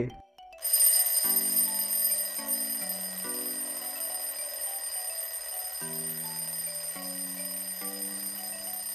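Countdown-timer sound effect for the thinking pause: a steady alarm-clock-like ringing that sets in about half a second in, slightly louder at first, with soft background music chords changing underneath.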